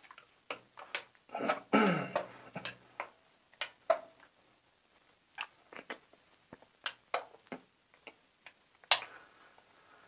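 Sticky homemade slime being stirred by hand in a container: irregular wet clicks, smacks and squelches from the stirrer pulling through the goo.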